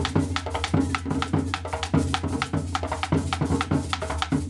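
Background music with a steady drum-kit beat over a sustained bass line.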